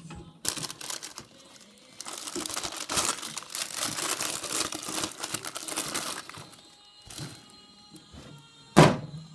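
Crinkling and crackling of handled packaging for about four seconds, over faint background music. A sharp clunk comes near the end, like a metal appliance door or lever.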